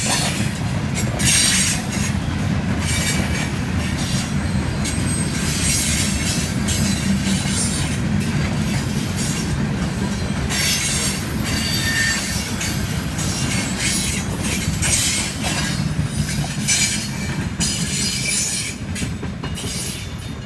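Freight cars of a passing train rolling by: a steady low rumble of wheels on rail, with repeated bursts of high hissing wheel noise. It falls off about nineteen seconds in as the last car passes.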